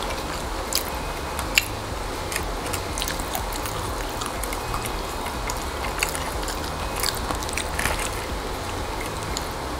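Eating crispy dried fish by hand: scattered crunches and crackles as the fish is broken apart and chewed, over a steady low hum.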